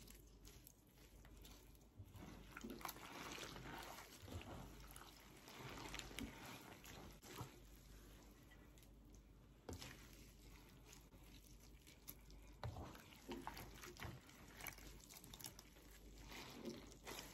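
Faint wet squelching and dripping in irregular bursts: sliced banana blossom being kneaded and squeezed by hand in water to wring out its sap.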